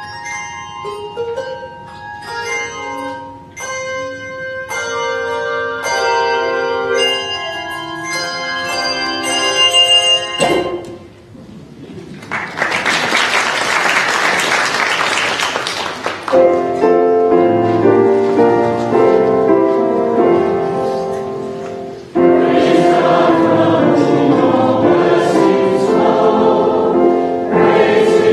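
A piece played on tuned bells, struck notes ringing and decaying, ends about ten seconds in and is followed by a few seconds of applause. Then sustained chords begin and swell about 22 seconds in as a congregation sings.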